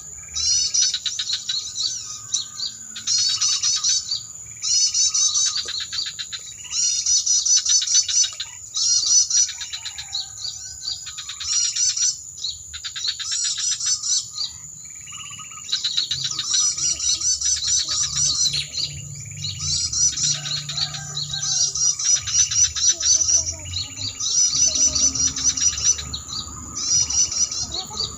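Bird-luring call played through a small speaker. Rapid, high-pitched chirps and trills come in repeated short phrases with brief gaps between them.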